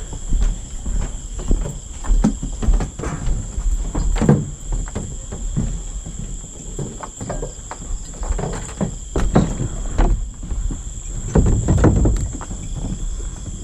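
Irregular knocks and thumps from footsteps and gear being handled around small fibreglass boats. Behind them, night insects such as crickets keep up a steady high-pitched chirring.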